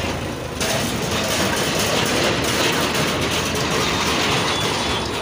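Mahindra tractor's diesel engine running hard under load as it pulls a loaded trailer, with a steady low drone and a loud, rough noise that swells about half a second in.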